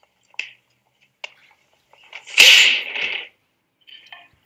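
Martial-arts fight sounds: two sharp snapping hits, then a loud breathy yell lasting about a second, and a faint short scuffle near the end.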